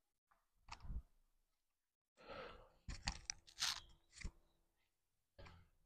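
A few faint clicks, knocks and a short rustle from hands handling parts of a stripped engine, with long quiet gaps between them.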